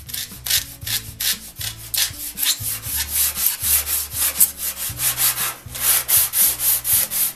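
Coarse emery paper on a wooden block scrubbed rapidly back and forth over the rusty teeth of a steel buck-saw blade, an even rasping at about four to five strokes a second, sanding the rust off the teeth.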